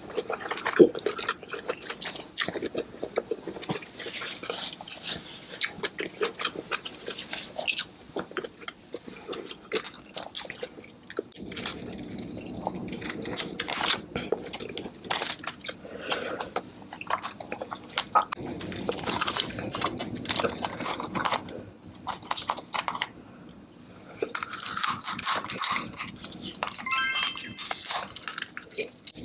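Close-miked eating of seafood: steady chewing and crunching with many sharp, wet clicks and smacks.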